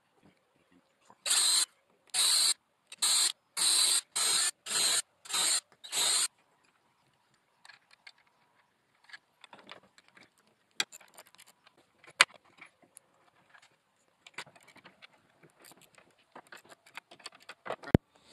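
A pencil scratches on plywood in eight quick, evenly spaced strokes, marking around a caster's mounting plate. After that come scattered light clicks and clinks as the caster and its bolts and washers are handled, with a sharp click near the end.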